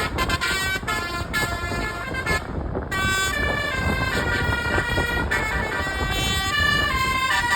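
Basuri musical air horn on a bus playing a telolet melody, jumping from note to note, with a short break about two and a half seconds in, over a low rumble.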